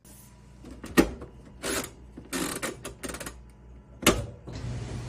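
Top-loading washing machine being set and started: a series of clicks and knocks as its cycle dial is turned, the loudest about a second in and again about four seconds in. Right after, the machine starts with a steady hum and hiss.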